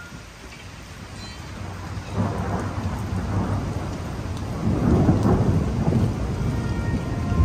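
Rolling thunder over rain. The rumble starts about two seconds in and swells louder about five seconds in.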